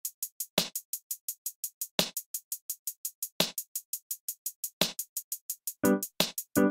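Background music with a steady beat: quick, light, even ticks and a heavier hit about every second and a half. Pitched chords come in near the end.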